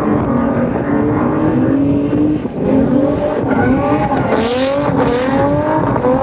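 Drift car engine running hard, fairly steady at first, then revving up again and again in quick rising sweeps from about three seconds in, with a short burst of tire squeal near the middle.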